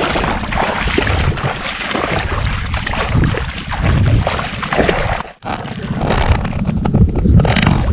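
Feet splashing as someone wades through shallow water, with wind buffeting the microphone. The sound drops out for a moment about five and a half seconds in.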